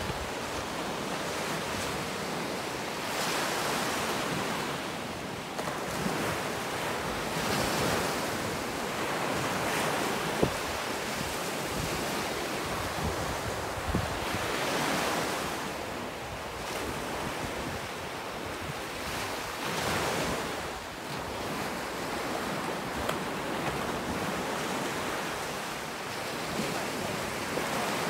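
Ocean surf breaking on a sandy beach: a steady rushing wash that swells and fades every few seconds as each wave comes in.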